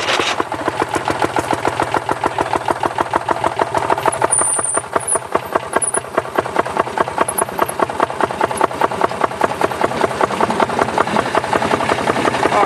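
Small engine of a railway section car (rail speeder) running with a rapid, even putter of firing pulses.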